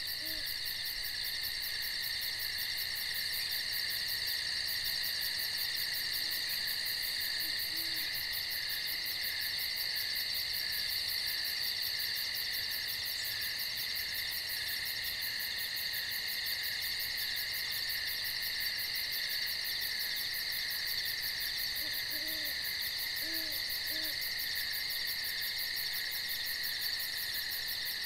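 Steady chorus of night insects, several shrill high whines with a fast pulsing buzz above them. Faint low hoots, likely an owl, come a few at a time, with three close together near the end.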